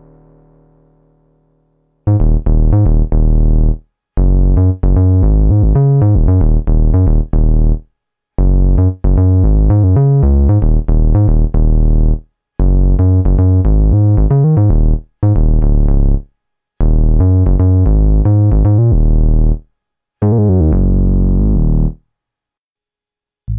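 Sequential Prophet 6 analog synthesizer playing a deep bass patch: phrases of short, punchy low notes with gaps of silence between them, after the decaying tail of the previous patch.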